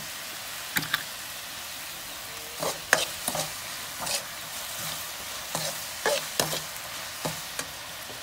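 Meat sizzling in a steel wok, stir-fried with a metal ladle that scrapes and clinks against the pan at irregular moments, the loudest clink about three seconds in.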